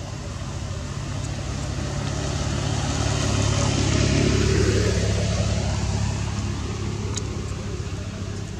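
A road vehicle passing by, its engine and tyre noise swelling to a peak about four seconds in and then fading, over a steady low hum.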